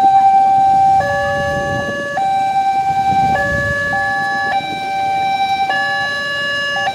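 Railway level-crossing warning alarm sounding an electronic two-tone hi-lo signal, switching pitch about once a second, to warn that a train is approaching. Idling motorcycle and car engines rumble underneath.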